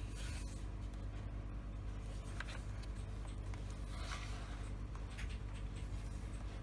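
Cardstock flaps of a scrapbook waterfall mini album being lifted and flipped by hand: a few faint paper rustles and slides, the clearest about four seconds in, over a steady low hum.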